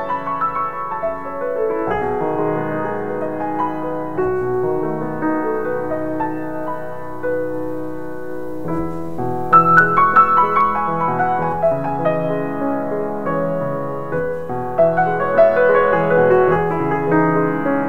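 Piano music playing held chords and melody notes, with a louder passage of higher notes coming in about halfway through.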